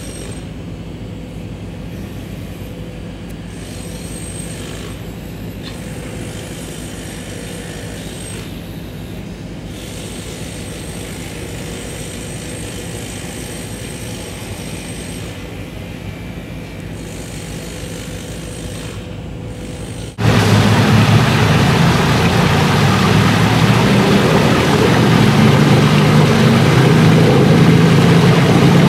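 Steady background ambience: a hiss with a faint hum, jumping abruptly louder about twenty seconds in to a stronger low rumble.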